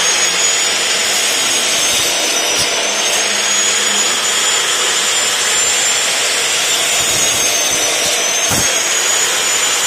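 Bosch GCO 220 2200-watt cut-off saw with a toothed blade running at full speed and cutting through cow bone. A loud, steady motor and blade noise with a high whine that dips in pitch twice as the blade is pressed into the bone.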